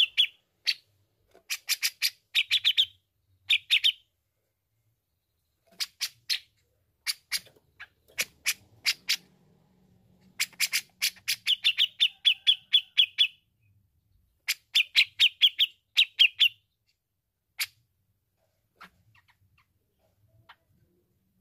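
Cucak jenggot (grey-cheeked bulbul) calling in rapid strings of sharp, chattering notes. It calls in several bursts with short pauses, then gives only a few scattered notes near the end.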